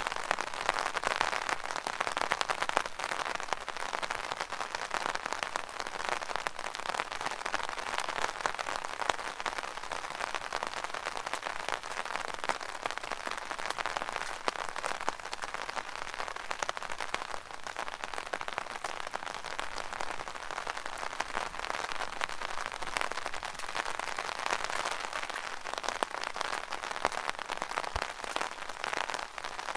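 Steady rain falling on an umbrella canopy: a dense, unbroken stream of small drop impacts.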